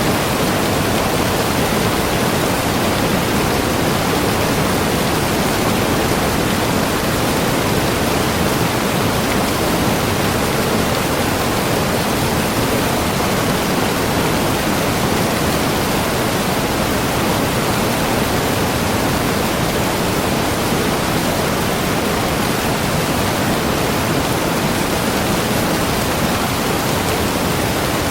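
Waterfall: water falling and splashing in a steady, loud rush with no change.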